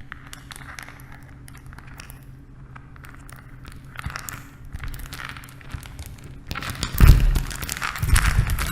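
Rocks crumbling: faint scattered cracks and small falling bits, then about seven seconds in a heavy thud and a louder, denser run of falling rubble.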